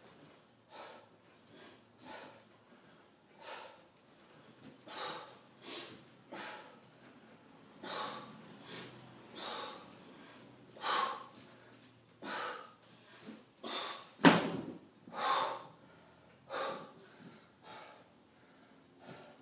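A man breathing hard in short, forceful breaths about once a second from the effort of decline push-ups on a stability ball, the breaths growing louder after about eight seconds. One sharp, loud burst about fourteen seconds in stands out above the rest.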